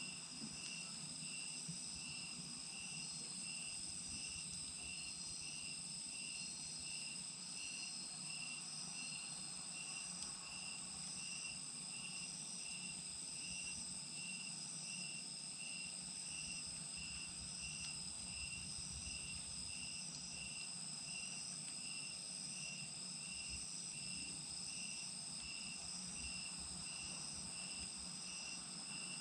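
Insects chirping in a steady chorus: a continuous high trill with another chirp pulsing about twice a second.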